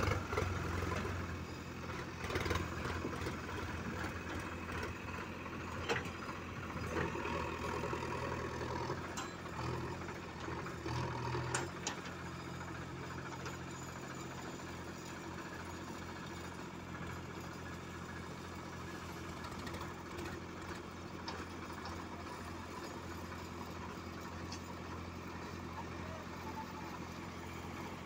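Diesel engines of a JCB 3DX backhoe loader and a Sonalika tractor running steadily, with a few sharp knocks in the first dozen seconds as the loader's bucket tips soil into the tractor trolley. After that only the engines run, a little quieter.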